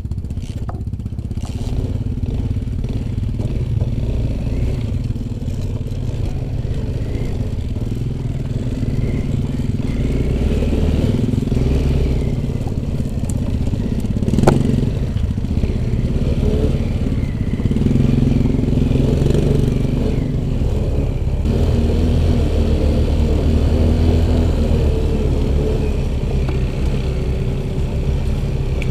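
Off-road motorcycle engine running, the throttle rising and falling as it rides over rough ground, with one sharp knock about halfway through.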